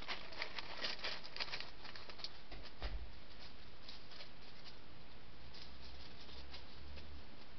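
Dry leaf litter rustling and crackling under a hedgehog moving through it: a quick run of small rustles and clicks over the first three seconds, ending with a low thud, then only a few faint ticks over steady hiss.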